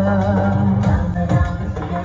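Loud dance music with a singing voice and a heavy, steady bass.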